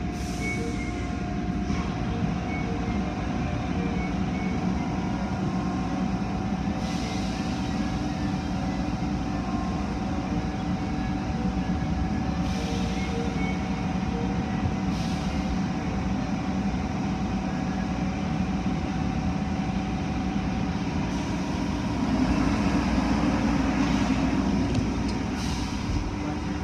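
Automatic tunnel car wash heard from inside a car: a steady drone of wash machinery with a held whine. Several short hissing surges of water spray hit the car, and it gets louder about 22 seconds in as the brushes and spray come over the windows.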